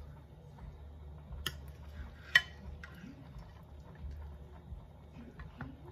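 Knife and plastic serving spoon clicking and tapping against a ceramic baking dish while cutting through a meatloaf, with a few scattered taps and one louder clack about two and a half seconds in, over a low steady hum.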